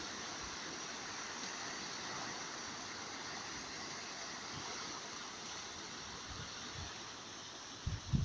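Sea surf washing onto a beach: a steady, even hiss of breaking waves. A few low thumps come near the end.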